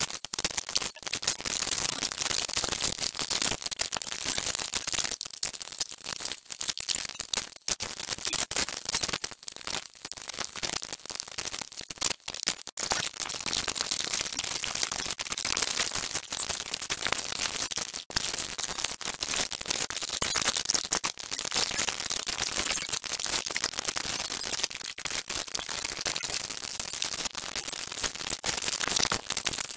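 Continuous rapid clicking and clattering of a plastic CD player casing, screws and screwdrivers being handled as the unit is taken apart.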